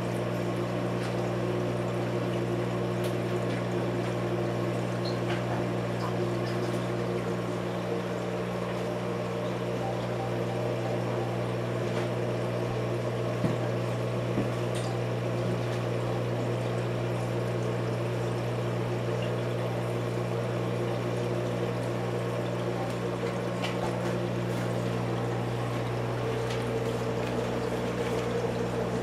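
Reef aquarium's pumps running: a steady hum with water trickling through the tank's plumbing, and a couple of small knocks about halfway through.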